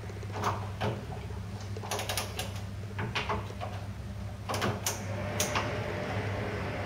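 Scattered light clicks and scrapes of a Phillips screwdriver working the adjustment screws of a door closer, some in quick pairs, over a steady low hum.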